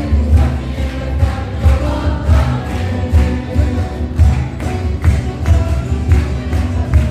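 A mixed choir singing to live acoustic accompaniment of classical guitar, long-necked saz (bağlama) and bowl-backed lutes, over a steady low beat. Handclapping joins near the end.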